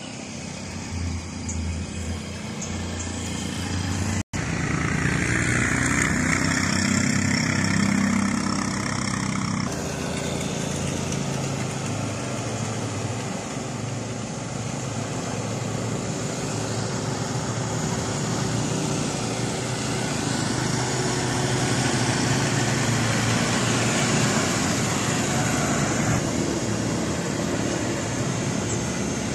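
Road traffic passing: the engines of an auto-rickshaw, a car, a motorcycle and a box truck go by in a steady mix, with a truck engine hum in the last seconds. There is a momentary dropout about four seconds in, and the sound changes abruptly near ten seconds, as at a cut.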